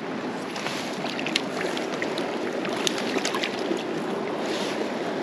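Small mountain stream's water rushing steadily over rocks, with scattered short splashes.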